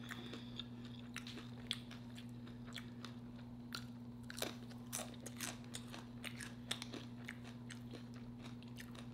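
Close-miked chewing and crunching of seafood Alfredo nachos on homemade chips, a run of small irregular crunches and mouth clicks, over a steady low electrical hum.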